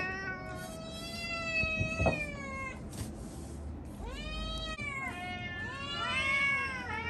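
Domestic cats meowing for food: one long drawn-out meow, then several shorter meows that rise and fall in pitch.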